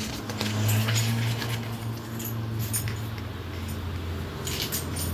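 Pages of a paper booklet being turned and handled, with light rustles and small clicks, over a steady low hum.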